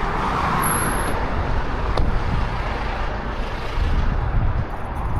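Semi-truck under way: a steady engine and road rumble, with a brief high whistle about a second in.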